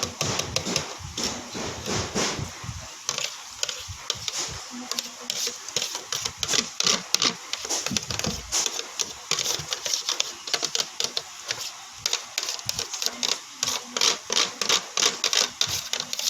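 Rapid repeated clicking and scraping of a utensil against a plastic box while slime ingredients are stirred, several taps a second, denser in the second half.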